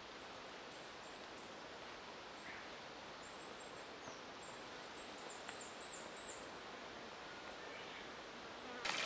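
Quiet forest ambience: a faint steady hiss with a few short, high, thin chirps from small creatures in the middle. Just before the end, loud running water cuts in abruptly.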